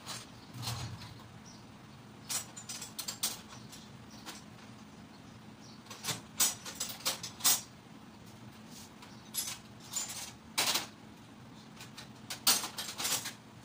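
Scattered metal clicks and clinks in small clusters, from hand tools and sockets being handled.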